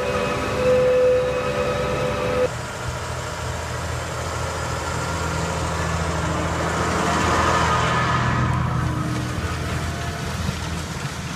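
Tractor engine working under load as it pulls a seven-furrow AH Hubert reversible plough through the soil. It starts as a steady whine with a hum beneath it. After an abrupt change about two and a half seconds in, it becomes a low drone with a noisy rush that swells around seven to eight seconds as the tractor and plough pass close by, then eases.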